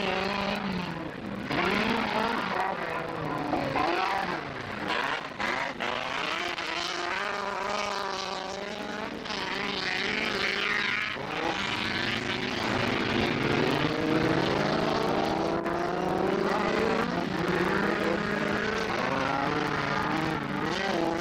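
Several autocross race car engines revving and running on the track, their pitch rising and falling as they accelerate and lift off, over a steady low drone.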